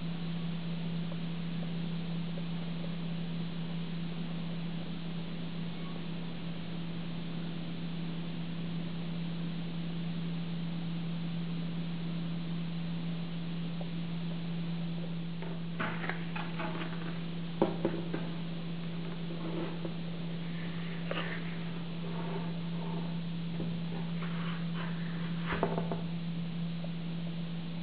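Steady low hum with background hiss. In the second half come a few faint clicks and knocks, one sharper click about two-thirds of the way in.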